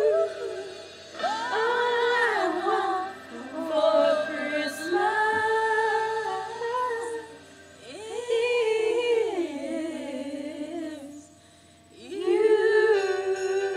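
A small group of women singing a cappella in long held phrases, with short breaks between them and a longer pause before a new phrase begins near the end.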